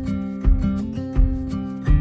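Instrumental background music with a steady beat, a low thump about every 0.7 seconds.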